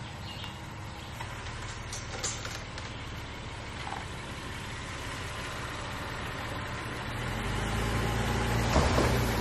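2018 Honda Ridgeline's 3.5-litre V6 running as the truck drives slowly along a dirt trail, growing louder near the end as it comes closer. A brief knock about two seconds in.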